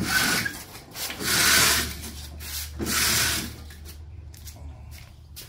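Three rasping, rubbing strokes, each half a second to a second long, over a steady low hum.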